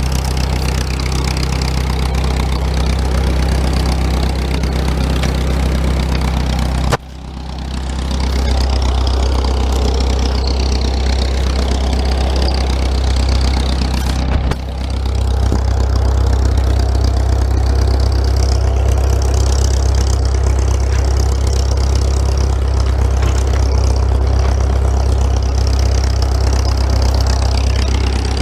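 An engine idling steadily, with two sudden breaks, about seven seconds in and again about halfway through.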